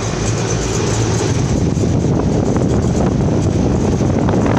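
2017 Allied Commercial 5-ton unit running steadily, its condenser fan and compressor giving a constant noise with a low hum. It doesn't sound good, and is thought to be typical of a unit that might be low on refrigerant.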